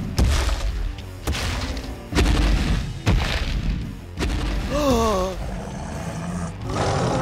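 Five heavy, booming dinosaur footstep sound effects about a second apart, for a walking toy dinosaur, over background music. A short wavering creature call falls in pitch about five seconds in.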